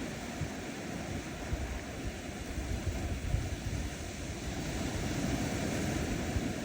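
Small ocean waves washing onto a sandy shore: a steady surf hiss that swells a little in the second half, with a low rumble of wind on the microphone underneath.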